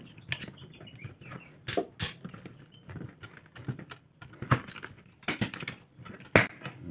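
Irregular clicks and knocks of tools and small parts being handled during a washing machine repair, with a few sharper taps standing out.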